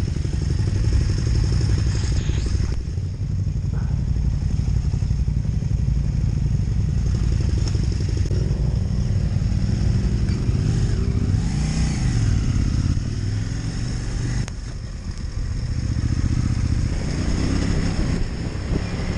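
Adventure motorcycle engine running under way on a gravel fire track, its note rising and falling with the throttle and easing off briefly about two-thirds of the way through.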